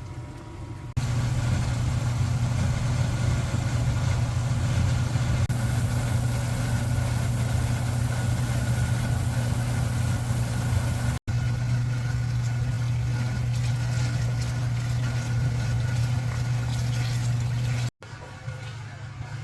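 A motor running with a steady hum, loud from about a second in, broken by a sudden cut about eleven seconds in and another near the end, after which it is quieter.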